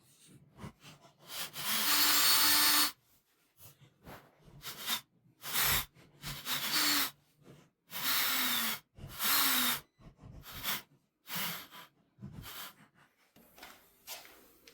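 Cordless drill/driver running in a series of short bursts, the longest near the start, its motor pitch rising and falling as it drives the mounting screws of a wall switch into the electrical box.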